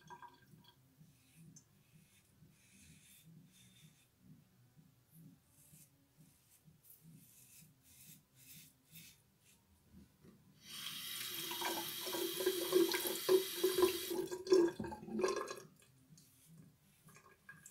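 Double-edge safety razor scraping through lathered stubble in faint short strokes. About eleven seconds in, a tap runs into a sink for about five seconds, much louder, then stops.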